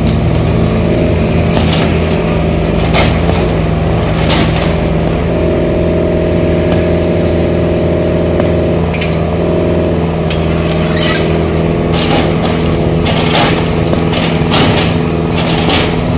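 Small excavator's engine running steadily under load, with scattered sharp knocks and clinks of concrete and metal as it breaks up hollow-block walls of a concrete house.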